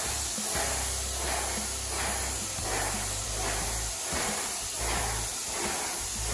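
Graco Magnum A80 Pro Plus airless paint sprayer spraying paint, a steady hiss, under background music with a beat.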